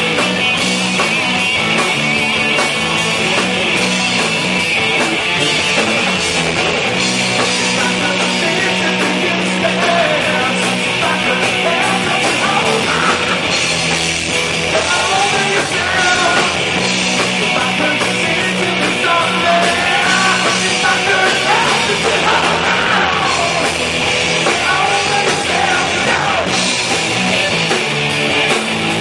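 Rock band playing live: a loud full-band song with guitars, bass and drums, at a steady level throughout.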